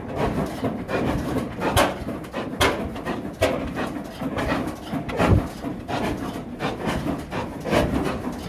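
Vintage stationary flywheel engine running slowly, with a heavy exhaust beat about once a second, not quite even.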